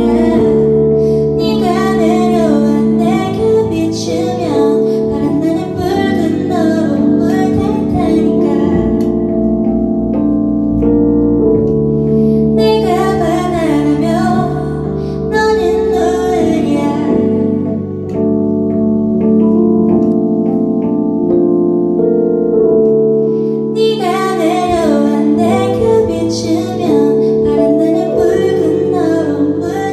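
Woman singing a slow song into a microphone over held instrumental chords. The voice drops out twice for a few seconds, leaving only the chords.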